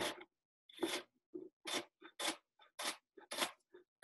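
Knife finely mincing red onion: a run of about a dozen quick, crisp chops, two to three a second and unevenly spaced.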